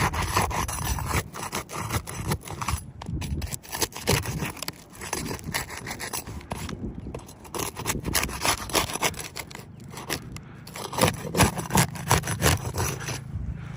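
Asphalt roof shingles being lifted and worked underneath to reach the nails: irregular scraping and rubbing with scattered clicks, and a run of sharper knocks about eleven seconds in.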